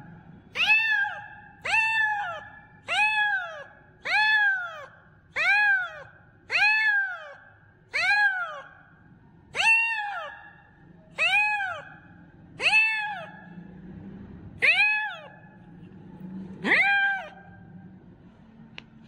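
Kitten meowing over and over: about a dozen loud meows, each rising then falling in pitch. They come roughly once a second, spacing out a little toward the end.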